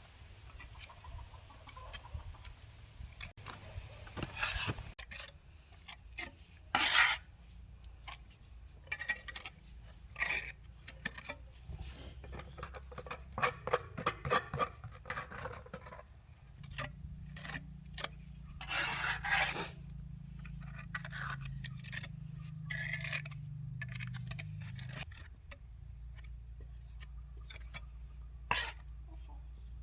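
Irregular scraping and rubbing of hard objects, with clinks and a few sharper knocks, and a steady low hum for several seconds in the middle.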